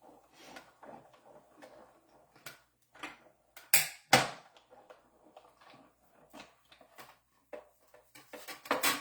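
Cardstock and craft tools being handled on a work table: soft paper rustling and light taps, two sharp clacks about four seconds in, and a run of louder clicks and clatter near the end.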